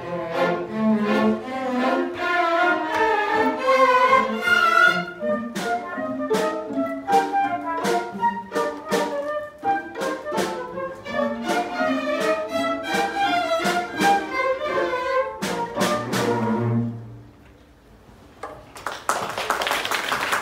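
A children's string orchestra of violins and cellos plays a piece in a steady rhythm, ending on a held low note about 17 seconds in. After a short pause, applause breaks out near the end.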